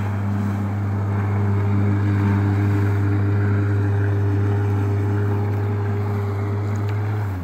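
Jet ski engine running steadily at a constant note, with a hiss of water over it; the note drops and falls away at the very end.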